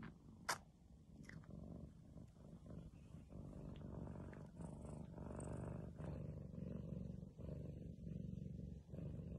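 Cat purring softly in a low, steady rumble with short breaks, and a single sharp click about half a second in.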